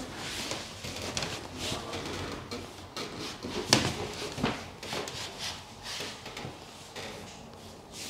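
Hands rubbing and pressing over a cotton T-shirt on a person's back, a string of short brushing strokes, with one sharper click a little before the middle.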